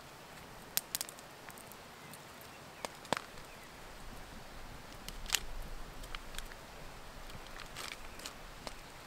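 Open wood campfire crackling, with sharp pops at irregular intervals over a faint steady hiss of open air.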